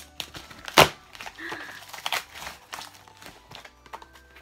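Packing tape and cardboard being picked at and torn off a large cardboard box by hand: irregular crackling and ripping, with one louder sharp rip a little under a second in.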